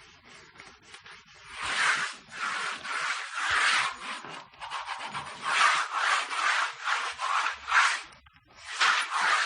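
Graphite pencil scratching across paper in repeated drawing strokes. Faint at first, the strokes grow louder about a second and a half in, with a brief pause near the end.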